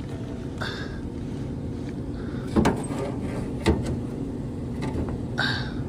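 Steady low machine hum of a running gas furnace, with two sharp knocks in the middle.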